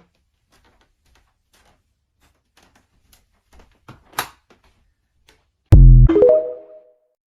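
Faint scattered clicks, then a sudden loud, low musical hit about six seconds in, a chord of several notes that dies away within about a second.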